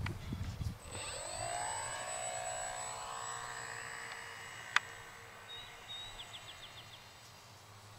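The electric motor and propeller of a Multiplex Fun Cub RC model floatplane, whining as it flies past low. About a second in the pitch drops steeply, then the whine settles and fades away, with one sharp click about halfway through.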